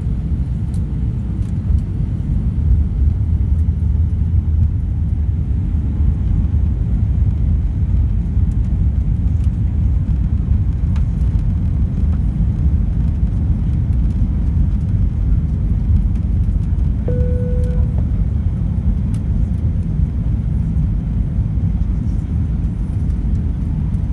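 Steady low rumble of engine and airflow noise heard inside the cabin of an Airbus A320-232 with IAE V2500 engines, descending on approach. A brief single tone sounds for about a second about three quarters of the way through.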